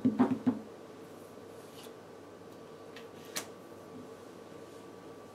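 Magic cards being handled on a playmat over a wooden table: a quick run of light clicks and taps in the first half second, then a single faint click about three and a half seconds in.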